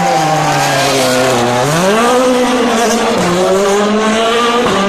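Rally car engine on a street stage: the revs fall, climb sharply about two seconds in, then hold steady.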